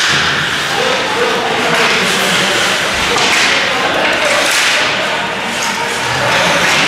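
Ice hockey play on a rink: skates scraping the ice, sticks clacking and the puck knocking, with spectators' voices shouting.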